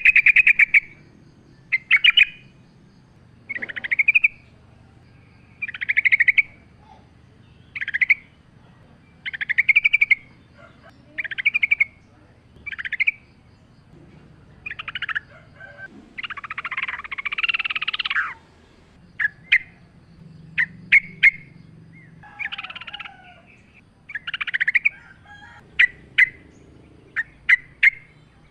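Yellow-vented bulbul (trucukan) singing short, bubbly, chattering phrases every second or two, with a longer, harsher phrase about two-thirds of the way through.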